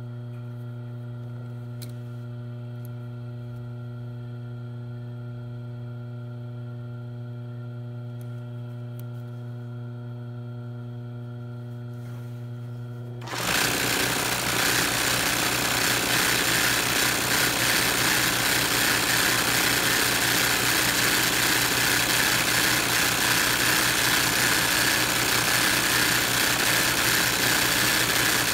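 A steady electric hum, then about halfway through a sewing machine starts stitching fast and runs on without a break: free-motion embroidery, the needle racing as the hooped cotton fabric is guided under it.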